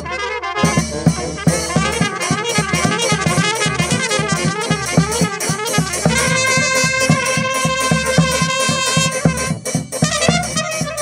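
Live brass band playing: trumpets and upright baritone horns over a bass drum beating steadily. A quick, ornamented melody gives way about six seconds in to long held chords, then the tune picks up again near the end.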